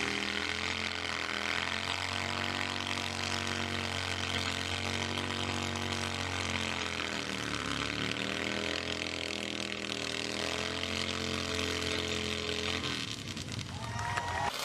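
Chainsaw engine running steadily. Its pitch sags and recovers about halfway through, then the sound drops off near the end.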